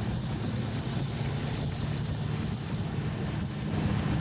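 Snowmobile engine running steadily, with a constant low drone.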